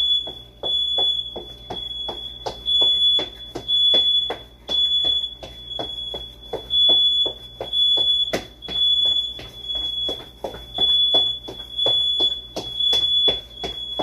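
House alarm sounding without pause: a shrill high beep repeating about twice a second. Under it are rapid, rhythmic thumps, about three a second.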